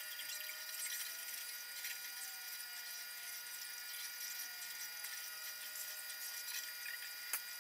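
Soft scratchy strokes of an ink brush on paper under a steady hiss with faint high electronic whines; one sharp click near the end.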